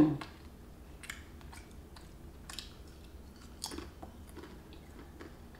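Person chewing very thin, lightly salted plantain chips: faint, irregular crisp crunches, a few a second.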